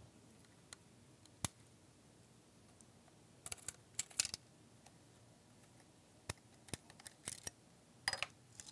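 Faint, scattered clicks and short crackles as a Microsoft Surface's glued-in display panel is lifted by hand off the tablet's chassis: single clicks in the first half, then a few quick clusters of crackling taps.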